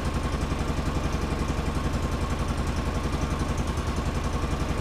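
2005 Polaris Ranger XP 700's twin-cylinder engine idling steadily with a regular pulsing exhaust beat. It is running rich and not firing cleanly.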